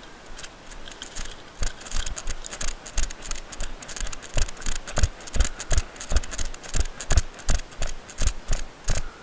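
Brisk footsteps crunching through snow, about two to three steps a second, with the rustle of brush and clothing. Soft rustling at first, the steady steps starting about a second and a half in.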